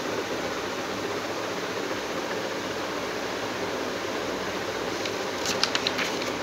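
Steady even hiss of background room noise, like a fan or air conditioner running. Near the end comes a short cluster of sharp clicks and rustles, handling noise as the phone is moved.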